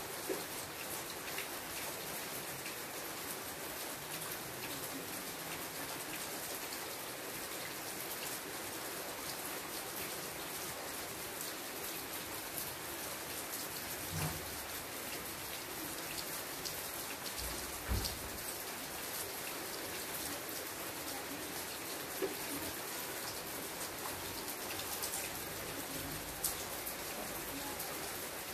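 Steady rain falling on leafy foliage, an even hiss of drops. A few single drops strike louder and closer, most plainly about 14 and 18 seconds in.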